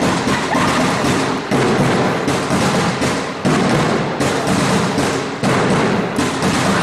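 Repeated thuds of a handball and players' feet on an indoor court, echoing in the hall, with music with a beat playing underneath.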